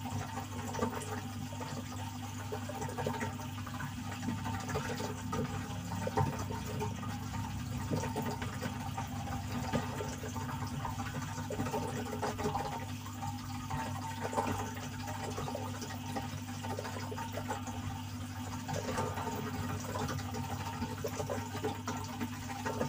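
Aquarium water trickling and splashing, as from a filter outflow, over a steady low hum.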